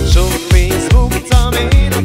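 Instrumental passage of a Hungarian mulatós song: a wavering keyboard melody with vibrato over a steady drum-machine beat, about two kicks a second.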